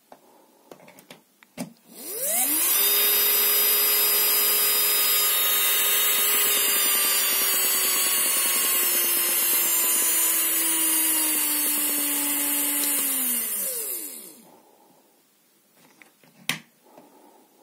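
A 12 V DC motor soft-started by a PWM speed controller: it winds up in about half a second to a loud high whine over a whirring hiss. Its pitch slides gradually lower as the speed is turned down, then it winds down and stops. A single click near the end.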